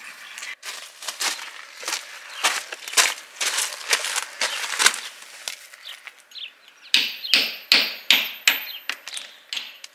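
Hammer striking a chisel into a rendered masonry wall, chipping out a hole for a vent pipe. Sharp, even blows about two a second, a short pause, then a quicker run of about three a second near the end.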